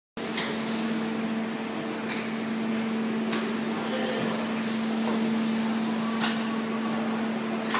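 Steady electrical hum and hiss of a high-frequency PVC welding machine standing ready. Over it come a few light clicks and a stretch of rustling hiss in the middle as the plastic sheets are handled on the tray.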